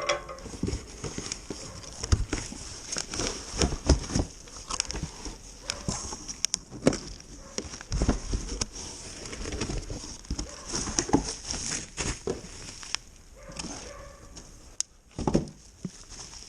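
Mini bike parts and packing material being handled and set down: a run of irregular knocks, clunks and rustles.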